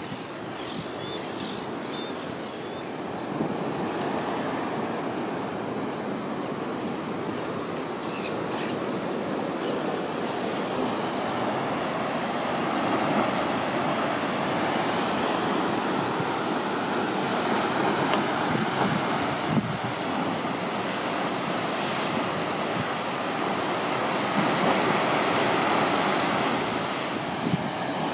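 Heavy ocean surf surging and breaking among rock stacks: a steady roar of churning water that swells louder about halfway through and again near the end.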